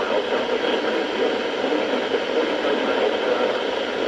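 Steady radio static hiss from a NOAA Weather Radio receiver tuned to an open channel, with no voice coming through.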